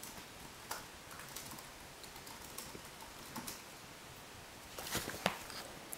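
German shorthaired pointer playing with a tennis ball right at the camera: scattered soft clicks and taps, with a quick cluster of them about five seconds in.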